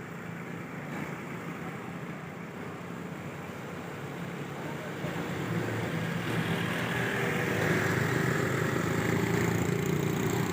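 City street traffic with a motor vehicle engine running steadily, getting louder about halfway through.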